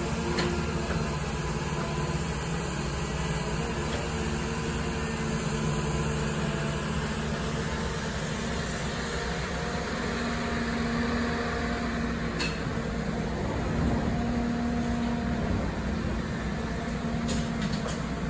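Caterpillar 319D tracked excavator's diesel engine running steadily while the machine digs and swings its bucket, its pitch rising slightly twice under hydraulic load. A few faint knocks.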